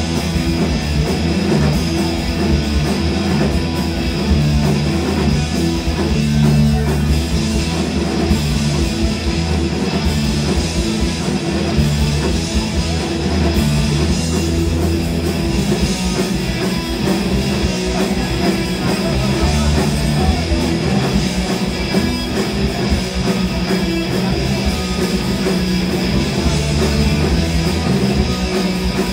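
Hardcore punk band playing live: electric guitar, bass guitar and drum kit, loud and unbroken.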